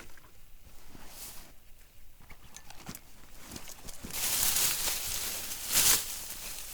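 Rustling: faint small handling noises, then about four seconds in a louder, continuous rustle that swells briefly near the end.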